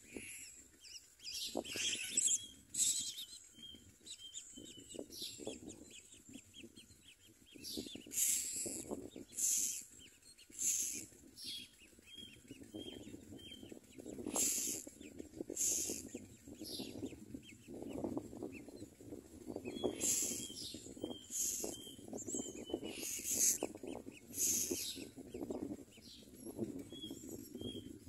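Common myna nestlings giving harsh, hissy begging calls in short bursts about a dozen times while being fed at the nest, over a steady rustling of twigs and small repeated chirps.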